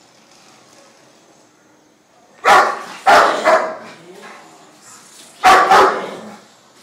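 Large dog barking on the leash at a helper during guard-and-protection training: after a couple of quiet seconds, three loud barks, then two more near the end.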